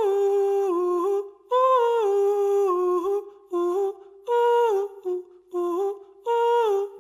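Background music: a single wordless voice hums a slow melody in short phrases of held notes, stepping up and down, with brief pauses between phrases and no accompaniment.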